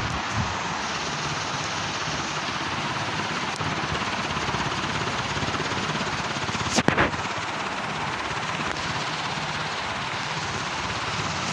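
Tokyo ceiling fan running steadily, a constant rush of air from the spinning blades with a faint rhythmic pulse. A single sharp click about seven seconds in.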